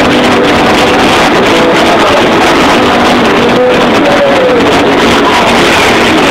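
Punk rock band playing live with distorted electric guitars, recorded very loud and overloaded on a phone so the music blurs into a harsh, clipped wall of sound.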